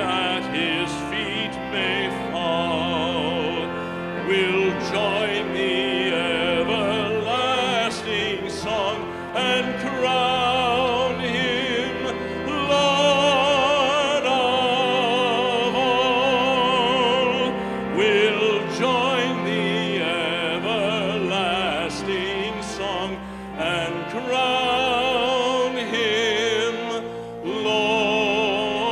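Music: a trained voice singing in a classical style with wide vibrato, over sustained instrumental accompaniment.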